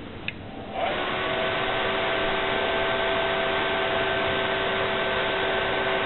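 HP PS-3701-1 725 W server power supply powering up: a short click, then just under a second in its cooling fan kicks on at full speed. The fan's loud, steady rush of air carries a steady whine of several tones.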